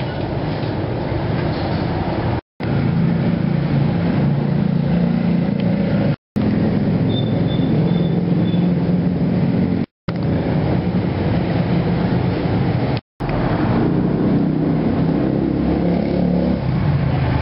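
Street traffic: motor vehicle engines running and passing close by, a steady low hum with noise over it. The sound cuts out to silence briefly four times, at the joins between short takes.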